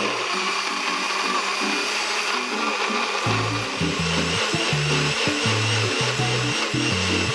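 NutriBullet blender running steadily, puréeing chunks of chili peppers, garlic and vegetables into a smooth hot sauce. Background music with a bass line comes in about three seconds in.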